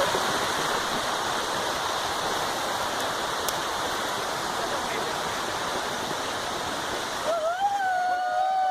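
Waterfall's water rushing steadily, an even, loud wash of noise. It drops away abruptly a little before the end, as a voice starts.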